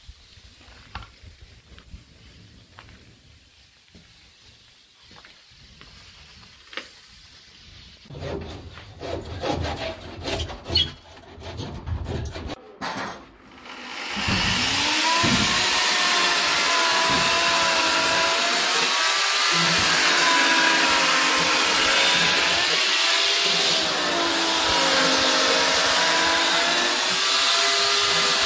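Light knocks and scraping of renovation work, then about halfway through a power tool starts cutting and runs loud, its pitch sagging and recovering as it bites under load, until it stops abruptly at the end.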